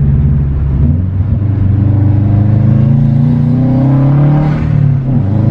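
2012 Subaru WRX turbocharged flat-four accelerating, its pitch rising steadily for a few seconds. Near the end the throttle is lifted and the engine note dips: the point where the stock turbo, run without a blow-off valve, surges and flutters.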